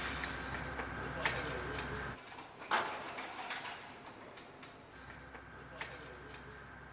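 Sparse clicks and light metallic clinks from crews handling a missile on a munitions loader, over a steady equipment hum with a faint high whine. The hum drops out about two seconds in and returns about five seconds in.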